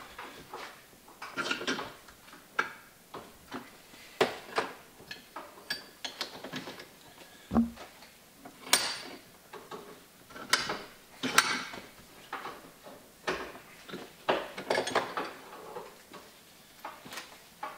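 Steel bench vise being cranked to squeeze short lengths of 42 mm steel pipe into an oval: irregular clicks, scrapes and short squeaks from the vise screw and handle, with metal knocking on the vise and workbench.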